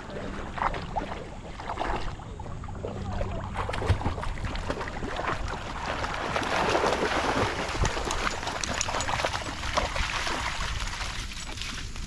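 Dogs splashing as they wade and run through a shallow creek, water sloshing around their legs in many small splashes, busiest from about six to ten seconds in.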